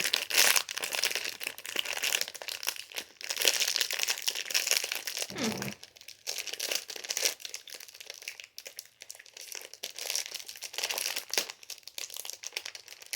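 Plastic packaging of a fidget toy crinkling and crackling in irregular bursts as it is handled and pulled at to get it open.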